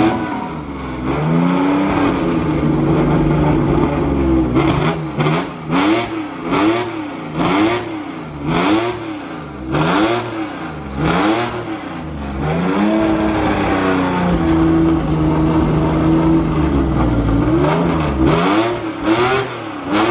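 Car engine being revved in repeated blips, the pitch rising and falling about once a second, held steady at raised revs twice along the way.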